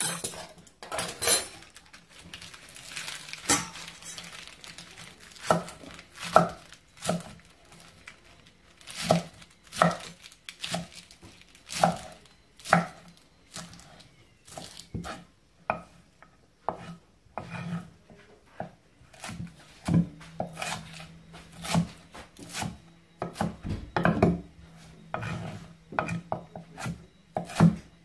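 A kitchen knife chopping salad vegetables on a cutting board: sharp knocks at irregular spacing, roughly one or two a second, with a quicker run of cuts near the end.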